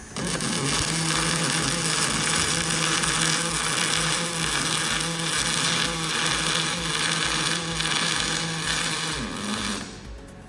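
Arc of a Kawasaki welding robot's wire-fed torch welding a steel H-beam connector: a steady crackling buzz with a low hum that starts suddenly and cuts off shortly before the end.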